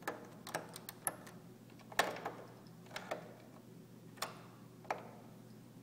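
Kaba Simplex mechanical push-button lock being worked by hand: a dozen or so irregular sharp clicks of buttons and lock parts, with the loudest clack about two seconds in.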